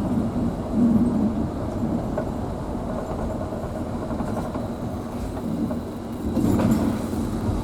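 A moving vehicle heard from inside: steady engine and road rumble that swells briefly about a second in and again near the end.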